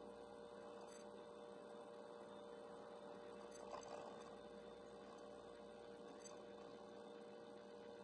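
Faint, steady electrical hum made of a few constant tones. It is recording noise picked up from soft box lights set very close to the camera while it was charging. A faint brief sound comes about four seconds in.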